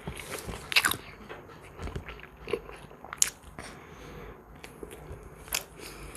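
Close-miked sounds of a person chewing and eating, with irregular sharp wet mouth clicks, the loudest about a second in.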